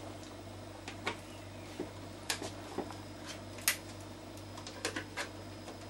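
Scattered light clicks and taps from handling a frozen CD-ROM drive and pressing its front, over a steady low hum. No motor or tray sound comes from the drive: it has failed the sub-zero test.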